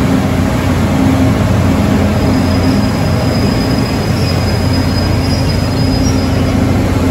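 Steady low diesel hum of a standing train. A faint high whine runs through the middle of it.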